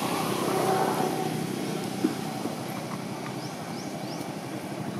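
Steady rumble of motor traffic, swelling in the first second as a vehicle passes and then easing off. A sharp click about two seconds in and three quick high rising chirps a little before four seconds sit on top.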